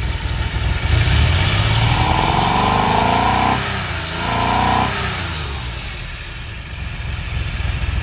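DeLorean DMC-12's PRV V6 engine revved up from idle twice, a longer rev held for a couple of seconds and then a shorter blip, before dropping back to a steady idle. The owner says it breaks up a little as it revs and almost sounds like it's missing on one plug.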